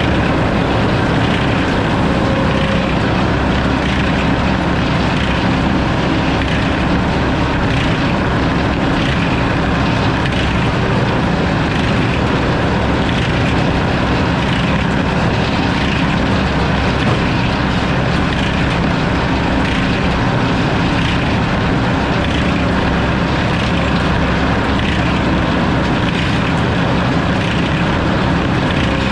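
Sawmill running steadily, its engine drone mixed with the saw working through a hardwood log.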